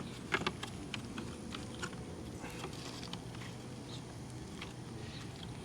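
Small plastic clicks and crackles from handling a mirror turn-signal light and its housing while fitting it in place, a few sharper clicks about half a second in, over a low steady hum.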